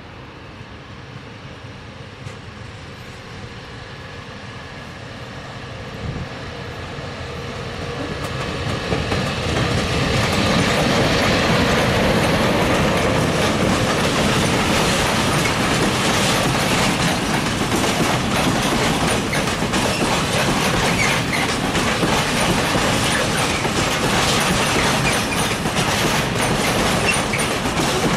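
Freight train hauled by an ET42 electric locomotive approaching and passing, growing louder over the first ten seconds. Its scrap-loaded open gondola wagons then roll past with a steady clickety-clack of wheels over the rail joints.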